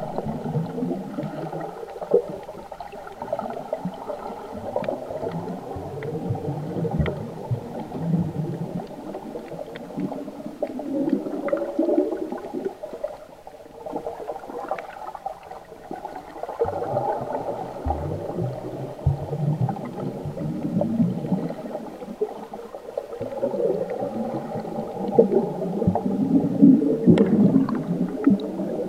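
Muffled underwater sound picked up by a camera held below the surface: water swirling and bubbles gurgling as a snorkeler swims, with a few scattered clicks.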